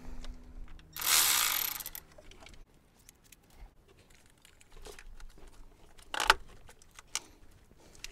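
Mechanic's work noises in an engine bay: a loud, rasping noise lasting about a second, then scattered clicks and knocks as the wiring harness and its plastic connectors are pulled clear of the thermostat housing.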